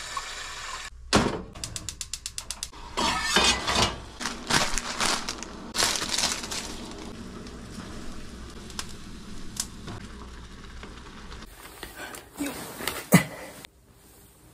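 Chopsticks chipping and scraping ice out of a frozen aluminium mess tin: sharp clicks and cracking knocks, with a quick run of clicks about two seconds in.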